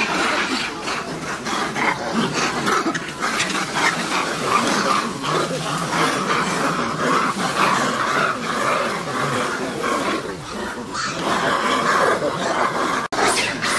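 Monkeys (macaques) calling: a dense, continuous mix of animal cries that breaks off for an instant near the end.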